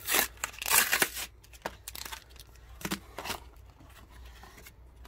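Pokémon card packaging being torn open and crinkled: a loud tearing rustle for about the first second, then a few shorter crinkles and rustles of the wrapper.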